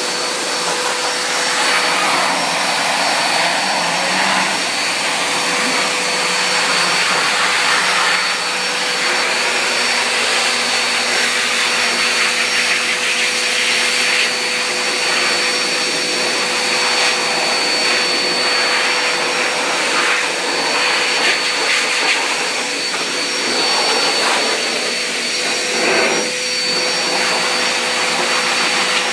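Hose-fed pet grooming blow dryer running steadily, a loud even rush of air from its nozzle with a few high steady tones from the blower motor.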